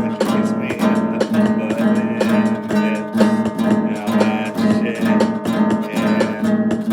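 Acoustic guitar music, rapidly strummed and plucked in a steady rhythm.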